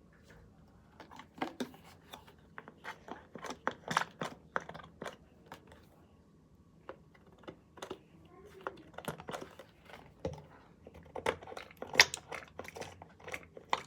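Plastic bottles and containers being handled and set down, with irregular clicks, taps and crinkling in two busy spells and a sharper knock near the end, as glue and shampoo are got out for slime.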